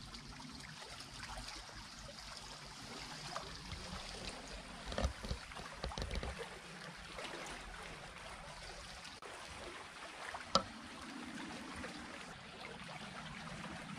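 Small stream flowing steadily, an even rush of water, with a few short knocks about five and six seconds in and a sharp click at about ten and a half seconds.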